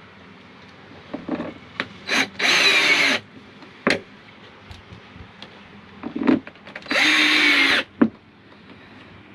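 Power drill driving countersunk self-tapping screws into the plastic plenum of an RV rooftop air conditioner. It runs twice in short bursts of about a second, with clicks of the driver bit and screw between the runs.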